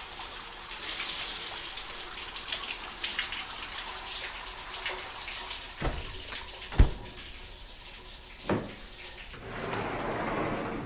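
Light pattering of dripping water, then a cabinet door being handled and pulled open: a few sharp knocks, the loudest about seven seconds in, followed by a short rushing noise near the end.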